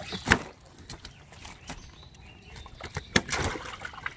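Sharp slaps and splashes as a net of live fish is swung onto a wooden boat and the fish flap in the water-filled hold. One loud thump comes about a third of a second in, and a cluster of wet slaps about three seconds in.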